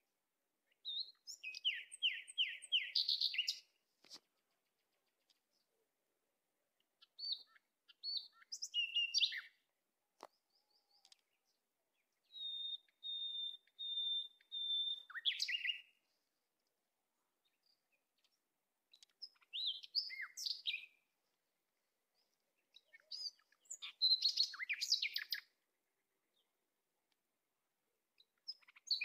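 Songbird singing in short, separate phrases of chirps and whistles every few seconds, with silence between them; one phrase, about halfway through, is a run of five even, steady notes ending in a falling flourish.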